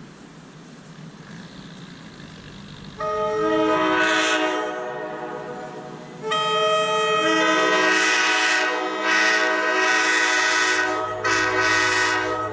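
A multi-chime air horn of the train-horn kind sounds a chord of several notes at once. One blast starts about three seconds in and fades away, then a longer blast follows, broken twice by short dips near the end.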